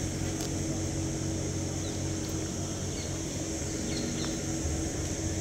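Steady outdoor street ambience: a low mechanical hum holding a constant pitch, under a steady high hiss. A few faint short chirps come through it, scattered.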